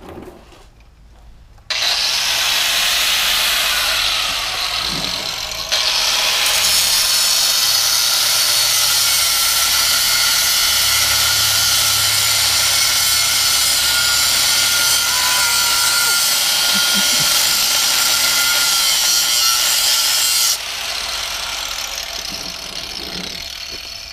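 Power tool cutting through a rusty steel axle U-bolt: a loud, steady, high-pitched cutting noise. It starts about two seconds in, gets louder around six seconds, then drops back near the end and fades away.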